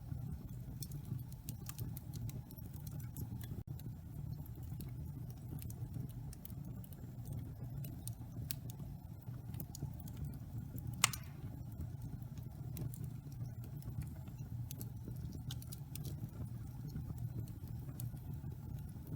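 Wood fire burning in a fireplace: a steady low rumble with scattered small crackles and one louder pop about eleven seconds in.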